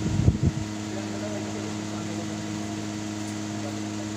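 Steady mechanical hum with a low even tone from an automatic transmission fluid exchange machine pumping ATF in and out of the transmission while the car's engine idles, near the end of an equal-exchange cycle.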